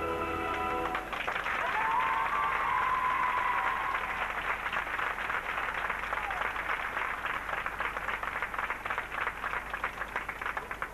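Audience applause: dense clapping from a crowd that breaks out as the routine music stops about a second in, with a single high drawn-out cheer rising above it early on. Near the end the clapping thins into separate claps.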